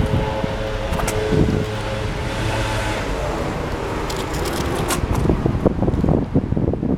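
Steady outdoor rumble of a vehicle, with wind buffeting the microphone from about five seconds in.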